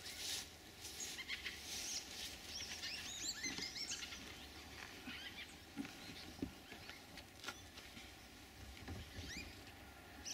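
Small birds chirping and twittering faintly, in quick high calls that sweep in pitch. The calls are busiest about two to four seconds in, then come in scattered bursts. Light rustles and clicks come from someone rummaging inside a car.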